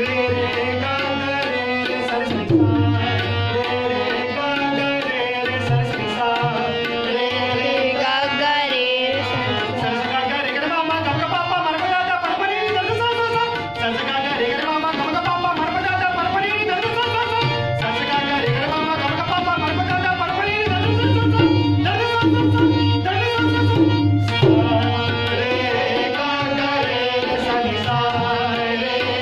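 A harmonium plays a sustained melody over a tabla pair keeping a steady rhythm, with deep bass-drum strokes, and a male voice sings the tune. The tabla strokes grow heavier about three quarters of the way through.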